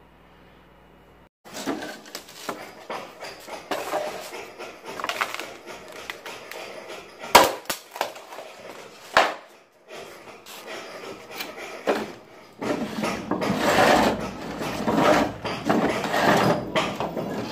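Laminate flooring planks being handled and set down onto a stack on a concrete floor, the wood clattering and knocking. It starts about a second and a half in, with two sharp clacks in the middle and a dense run of clattering near the end.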